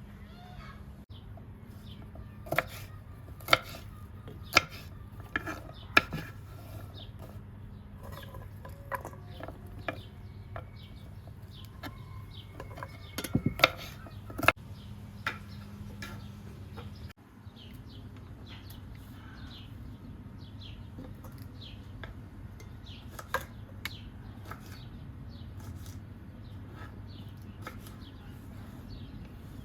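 Sharp knocks and clinks of cookware being handled, loudest in two clusters near the start and the middle. Chickens cluck and small birds chirp throughout over a steady low hum.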